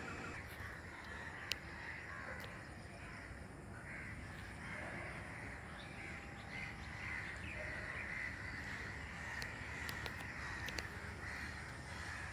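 Birds calling repeatedly, with one sharp click about a second and a half in.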